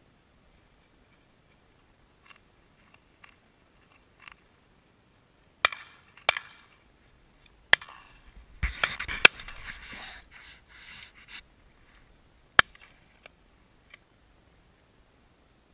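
Shotgun shots: five sharp reports spread over about seven seconds, with a stretch of rustling handling noise around the middle.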